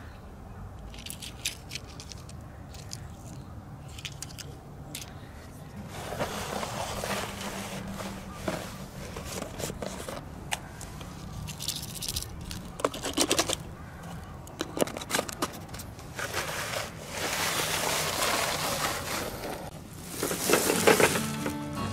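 Small toy cars being handled and moved over gritty sand and gravel: scraping and crunching of grit with light clicks, growing louder towards the end.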